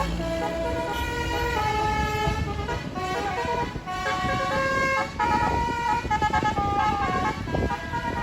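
Bus 'telolet' musical air horn (a multi-trumpet basuri horn) playing a tune of held notes that change pitch in steps, over a rough background of vehicle noise.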